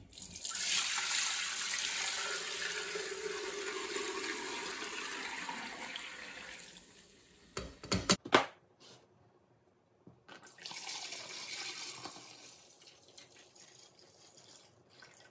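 Turkey stock poured from a bowl through a fine-mesh strainer into a stainless steel pot: a steady splashing stream that thins to a trickle about seven seconds in, then a few clinks. A second, shorter and quieter pour follows about ten seconds in.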